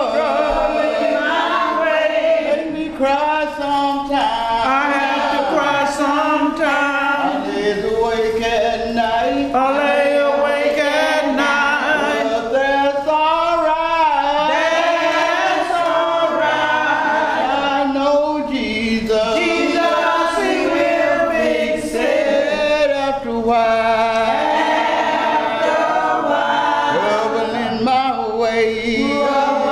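A small group of elderly women singing an old spiritual hymn together, unaccompanied.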